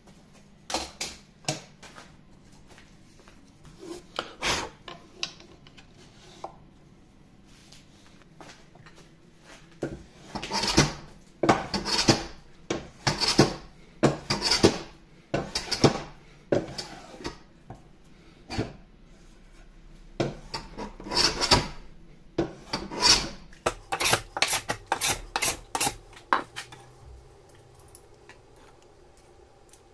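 Hand plane strokes on wood, cutting the recess for a boxwood boxing strip in a wooden plane body: repeated scraping strokes about one a second, quickening into many short strokes near the end. A few light knocks of handling come first.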